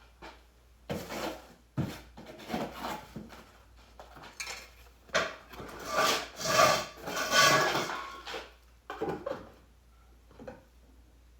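Irregular rubbing and scraping strokes on a hard surface, loudest a little past the middle and dying away near the end.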